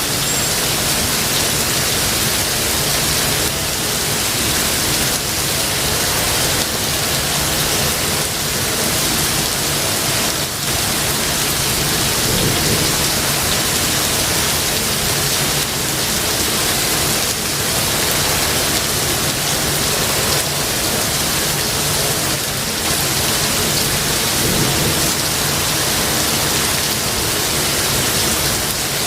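Steady rain falling in a forest, with low rumbling thunder underneath.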